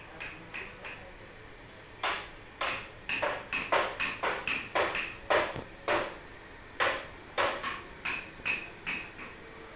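Hammer blows in a woodworking shop, irregular sharp strikes each with a short metallic ring: a few light taps, a pause of about a second, then a louder, quicker run of blows that eases to lighter taps near the end.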